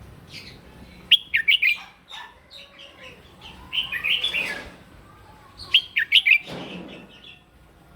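Red-whiskered bulbul singing its loud competitive song. Three bursts of short, bright, warbling phrases come about a second in, around four seconds in and just before six seconds.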